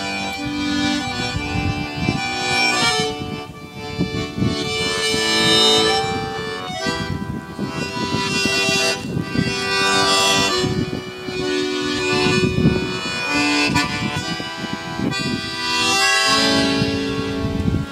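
Button accordion playing a tune: a melody line over held chords and bass notes, with the notes changing every second or so.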